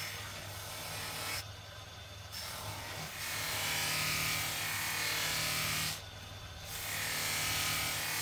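Bench polishing motor running with a cloth buffing wheel, with the hissing rub of a small metal gear pressed against the spinning wheel. The rub breaks off twice for under a second while the part is lifted away, leaving only the motor hum.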